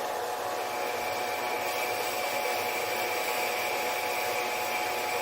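Mini lathe running with a steady motor whine while a parting tool cuts into a spinning polycarbonate part. A high whistle from the cut sets in shortly after the start and holds steady.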